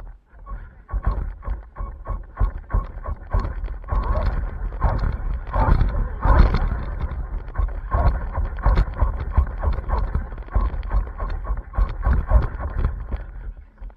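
Sound picked up by a camera riding on an RC car rolling slowly over a concrete driveway: a low rumble with rapid, irregular knocks and rattles, and a high whine that pulses on and off.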